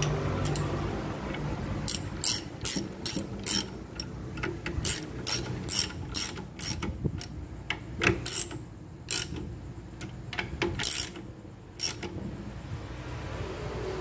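Hand ratchet wrench clicking in short runs as bolts are turned down, likely on the oil strainer and its holder during an engine rebuild.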